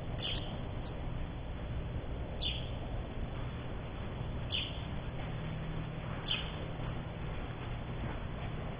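A small bird chirping: short, high, falling chirps about every two seconds, over a low steady hum.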